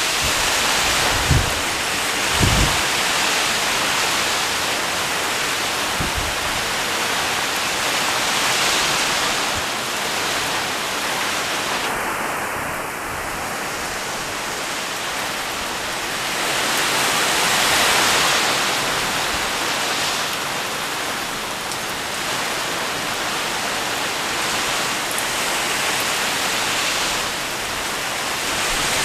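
Heavy rain pouring steadily onto palm fronds and leafy shrubs, swelling louder twice. A few low wind buffets hit the microphone in the first several seconds.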